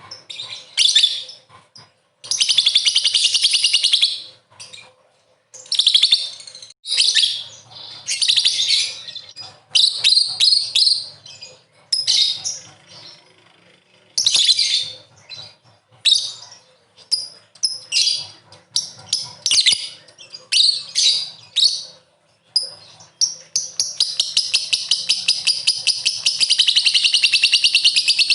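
Lovebird ngekek: shrill, rapid chattering calls in short bursts. There is a sustained trill of fast repeated notes about two seconds in, and a long unbroken trill that starts near the end.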